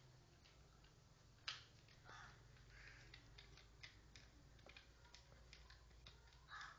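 Faint gnawing of a smooth fox terrier on a bone: scattered clicks and short scrapes of teeth on bone, with one sharper click about a second and a half in.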